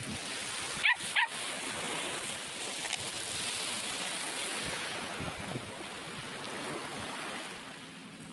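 A dog barks twice in quick succession, about a second in, two short barks that are the loudest thing here. Steady surf washes in the background.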